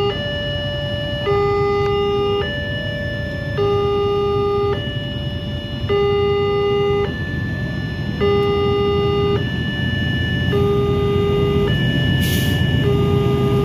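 Railway level-crossing warning alarm sounding its electronic two-tone signal, alternating a lower and a higher tone, each held about a second, to warn of an approaching train. A low rumble of idling motorcycle engines runs beneath.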